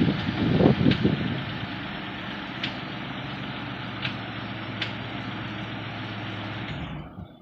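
Mitsubishi 3000GT's V6 engine idling steadily with a low hum, after a rough, louder first second. The sound cuts off shortly before the end.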